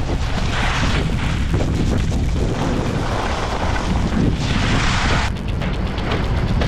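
Wind buffeting the microphone of a helmet or chest action camera while skiing downhill, with a deep, continuous rumble and swells of hiss as the skis run over the snow.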